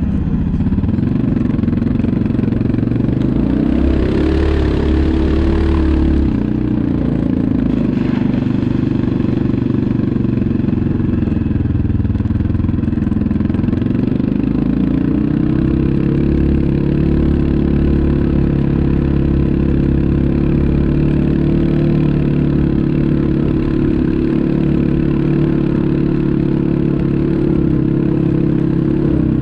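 ATV engine running, its pitch climbing about four seconds in with a burst of hiss. The pitch dips again about twelve seconds in, then holds steady for the last half.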